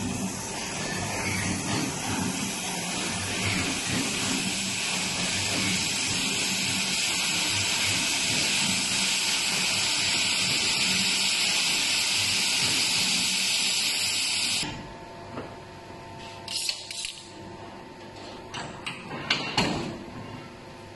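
Edible biscuit tea cup making machine giving off a loud, steady hiss while its dies are closed, which stops abruptly about two-thirds of the way through. A faint hum and a few knocks and clatters follow as the cups are handled.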